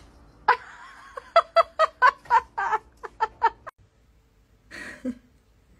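A person laughing in a quick run of short 'ha-ha' bursts, about four a second, which cuts off suddenly, followed by a brief breathy sound near the end.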